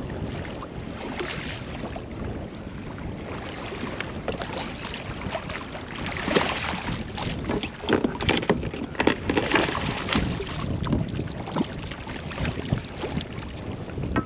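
Wind buffeting the microphone on a fishing kayak at sea, with a run of sharp knocks and rattles from about six to eleven seconds in.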